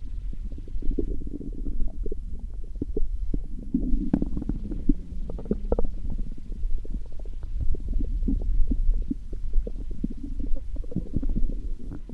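Stomach growling: a continuous low rumble full of quick gurgles and pops, with a busier, sharper run of gurgles a few seconds in.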